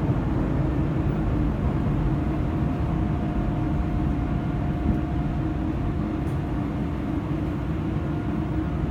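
Interior of a CTA elevated rapid-transit rail car rumbling as it slows and draws to a stop at a station platform. A steady high hum joins the rumble about two seconds in.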